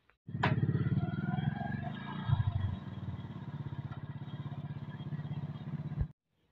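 Single-cylinder engine of a Hero commuter motorcycle running with an even putter, louder for the first two and a half seconds and then settling steady. A sharp click comes just as it begins, and the sound cuts off suddenly near the end.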